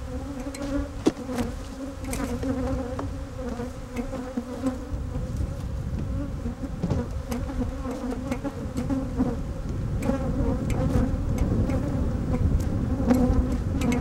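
A mass of honeybees, stirred up by the opened hives and shaken combs, buzzing in a steady hum. Scattered knocks and clicks sound over the hum.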